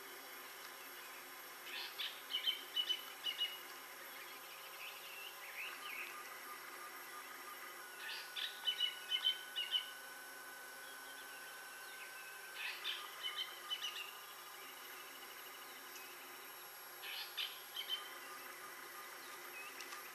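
A bird calling in short chirping phrases, four times about every five seconds, over a steady drone of insects.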